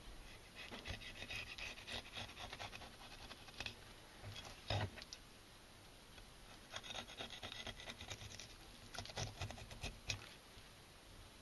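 A large knife cutting along the backbone of a small largemouth bass on a cutting board to take off a fillet. Faint scraping strokes come in a few runs, with one louder stroke about halfway through.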